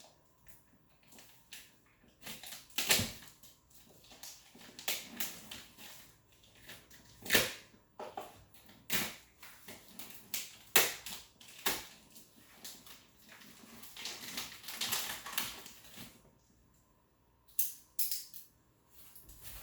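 A cardboard shipping box and its packing being opened and handled: irregular knocks, taps and clicks, with stretches of crinkling and rustling. A few of the knocks are much louder than the rest.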